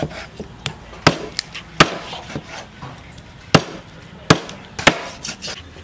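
Cleaver chopping cooked chicken into pieces on a round chopping board: sharp, uneven chops, about five hard strikes with lighter taps in between.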